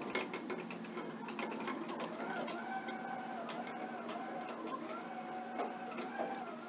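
Omron LD-90 autonomous mobile robot driving and turning: from about two seconds in, a whine that steps up and down in pitch, over a steady low hum with scattered clicks.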